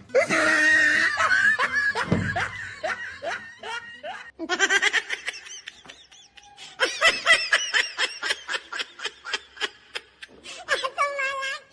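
A person laughing in quick repeated ha-ha pulses, about four a second, with a short break near the middle.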